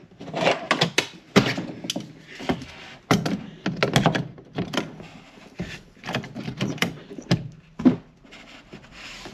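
Rearview mirror being twisted onto its windshield mount with pliers: a run of irregular clicks and knocks of metal and plastic as the jaws grip and work the mirror stem.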